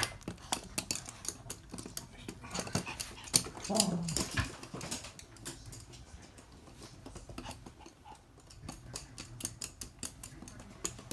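Toy poodles' claws clicking irregularly on a hard wood-look floor as the dogs run and scramble about, with a brief low vocal sound about four seconds in.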